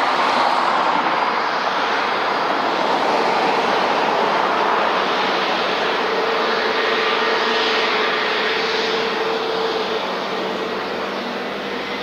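Jet airliner's engines running loud as the plane passes: a dense roar with a few steady whining tones, slowly getting quieter near the end.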